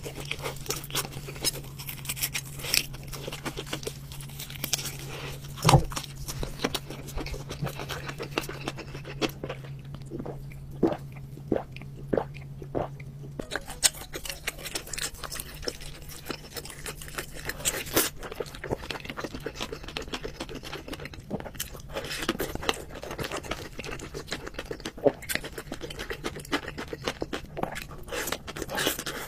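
Close-miked eating sounds: a person crunching and chewing food, with dense wet clicks that thin out for a few seconds in the middle. A steady low hum runs underneath and stops about halfway through.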